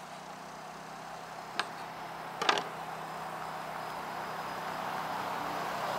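Steady outdoor background hiss, growing a little louder toward the end, broken by a single sharp click about one and a half seconds in and a short clatter of clicks about a second later.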